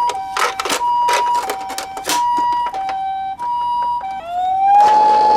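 Toy ambulance's electronic two-tone 'pee-po' siren, alternating between a higher and a lower note about every two-thirds of a second, with short noisy bursts over it. About four seconds in, a toy police car's wail siren starts, rising in pitch and then holding one louder steady tone.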